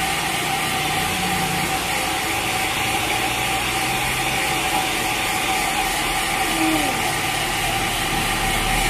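Steady mechanical hum with a constant whine.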